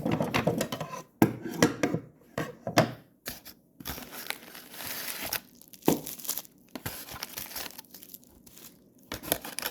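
Product packaging being handled and opened: plastic and paper crinkling and tearing, with irregular sharp clicks and short pauses.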